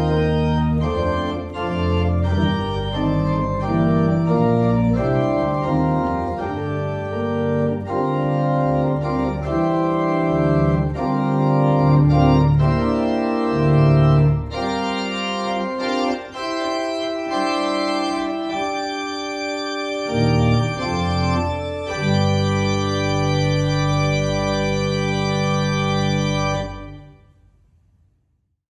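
Organ playing a closing piece in sustained, changing chords. Its final chord is held and then released near the end, dying away to silence.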